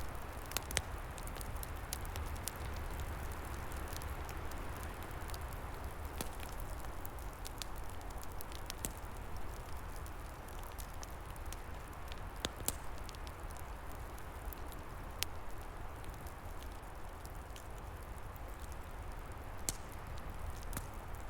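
Log fire crackling, with scattered sharp pops at irregular intervals, over a steady rush of wind in the trees and a low rumble.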